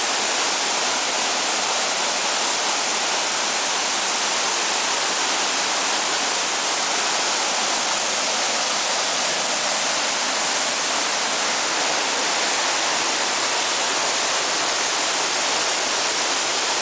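Waterfall cascading: a steady, loud rush of falling water.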